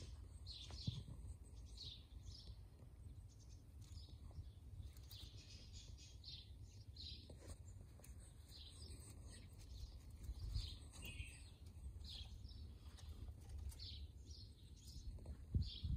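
Japanese quails giving short, high chirps, repeated every second or so, over a low steady background rumble.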